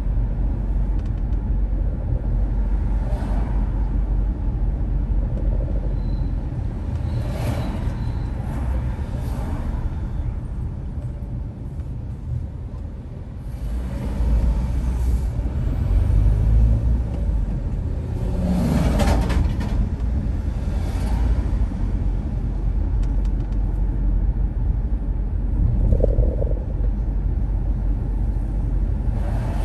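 Car driving on the road: a steady low rumble of engine and tyres, with brief louder swells of traffic now and then and a short quieter dip about twelve seconds in.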